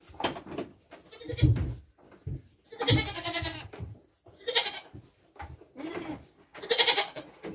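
Goat bleating repeatedly, several short bleats a second or two apart.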